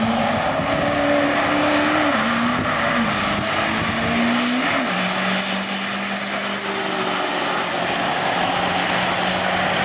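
Turbocharged diesel pickup accelerating hard down a drag strip: a high turbo whistle climbs steeply, then holds, while the engine note drops in steps about two, three and five seconds in as it shifts gears.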